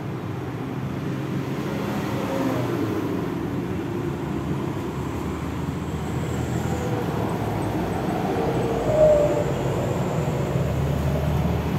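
Motor vehicle running steadily along a road, with its engine and road noise heard close and a brief rise in level about nine seconds in.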